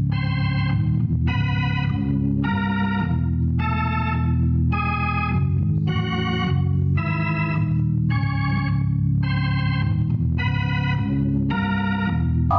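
Organ music: a line of short, evenly spaced notes, about one and a half a second, over held low chords.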